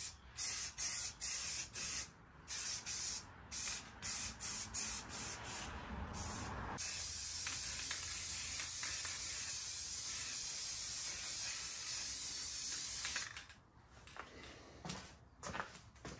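Aerosol can of Rust-Oleum Ultra Cover high-gloss black spray paint hissing as a light coat goes on: a run of short bursts, then one steady spray of about six seconds that cuts off sharply. The can is nearly empty.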